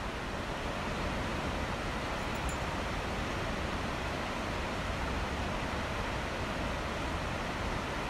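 Takakkaw Falls, a very tall plunging waterfall, gives a steady, unbroken rush of falling water with a strong low rumble underneath.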